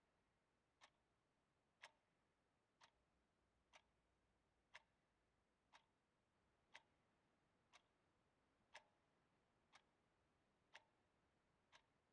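A clock ticking faintly, one tick each second, in otherwise near silence.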